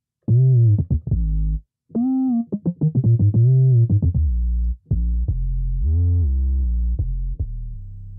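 Synth bass preset "DP's Bass" from the Peculiar Sounds plugin, played from a keyboard. It plays a run of deep notes, some short and some held, with several sliding up and back down in pitch, and ends on a long low note.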